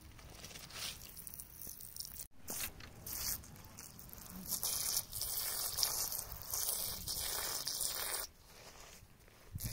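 Water poured and trickling onto wet gravel while fingers rub and scrape through the grit. A short break about two seconds in, then a louder stretch of running water that stops shortly before the end.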